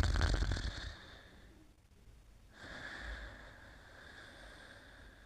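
Snoring in sleep: a loud snore fading out within the first second, then a softer breath with a faint whistle from about two and a half seconds in.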